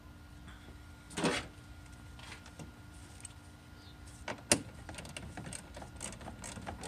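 Gloved hands working a fastener loose at the top of a pickup truck's plastic radiator fan shroud: a brief scrape about a second in, two sharp clicks a little past four seconds, then a string of small clicks and rattles.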